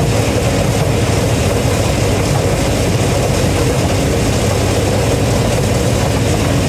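Gleaner M3 combine running steadily while picking corn: engine and threshing machinery in one constant drone.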